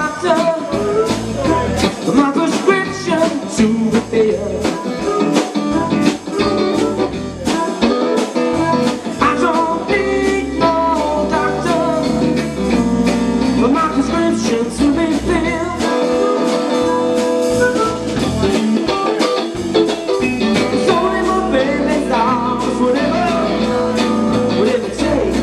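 Live band playing a blues-rock number, electric guitar to the fore.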